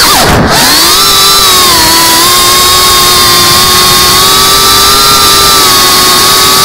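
FPV quadcopter's brushless motors and propellers whining, heard through the onboard camera's microphone. The pitch dips sharply just after the start as the throttle is cut and reapplied, then climbs back and holds a steady high whine.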